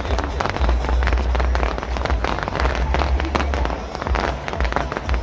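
Fireworks display: dense, continuous crackling and popping from many bursting shells and sparkling stars.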